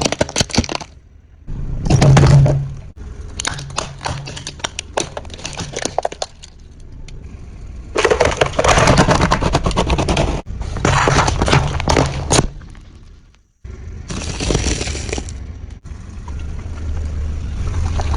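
Crunchy objects being crushed under a vehicle: repeated cracking and breaking in several separate bursts that start and stop abruptly, over a low engine rumble.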